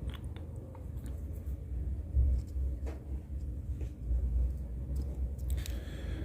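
Low steady rumble that swells about two seconds in, with a few faint clicks and a short scratchy noise near the end.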